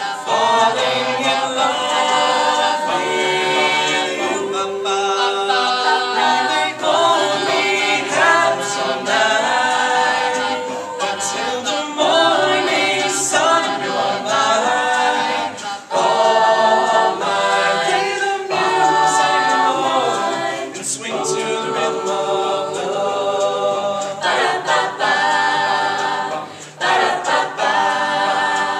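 Mixed male and female a cappella group singing in close harmony, the chords changing about once a second.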